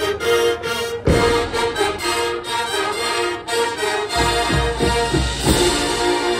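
College marching band playing a field show: brass and front-ensemble percussion in pulsing, repeated chords, with a run of low hits about four seconds in and a loud crash shortly after.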